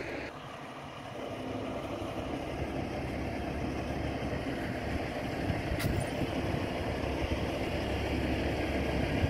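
A heavy diesel engine idling steadily with a low, even rumble. A single short click comes about six seconds in.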